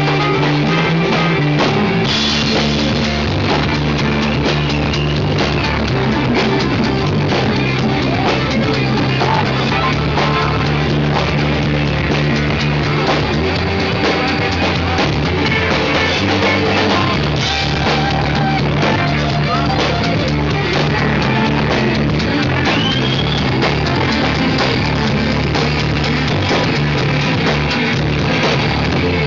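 Live blues-rock band playing an instrumental jam: electric guitar, bass guitar, drum kit and keyboard, loud and continuous.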